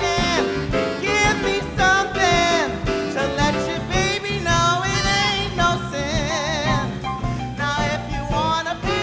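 Live band playing a swing-style number while a singer riffs in wordless, sliding vocal runs, with a wide vibrato held about six seconds in.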